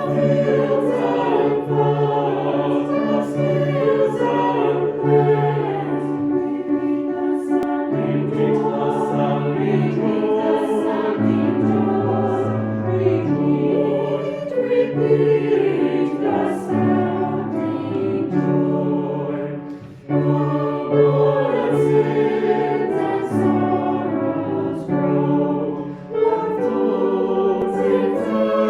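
Choir singing a hymn in held notes over a sustained bass accompaniment, with short breaks between phrases.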